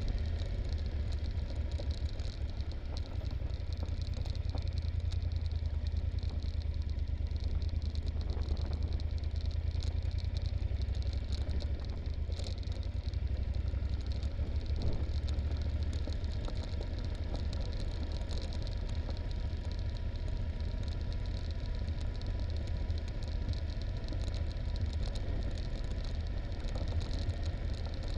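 Yamaha Super Ténéré's parallel-twin engine running steadily at low speed on a descent, with rattling and ticking from the bike jolting over a rough gravel track.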